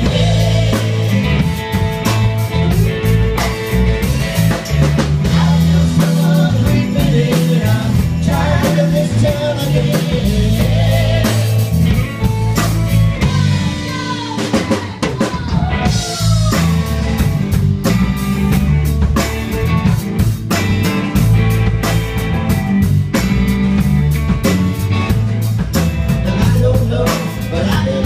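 A live rock band playing a song, with a drum kit keeping a steady beat, electric guitars and a woman singing.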